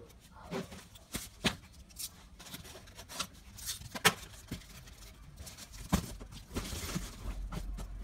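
Corrugated cardboard and tools being handled on a wooden desk: a series of sharp knocks and taps, with rustling and a low rumble near the end.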